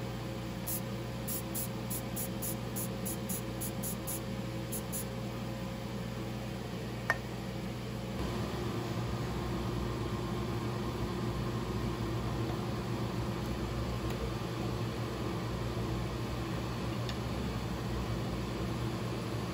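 Wood lathe running with a steady motor hum. A single sharp click comes about seven seconds in, and after it the hum changes and grows a little louder.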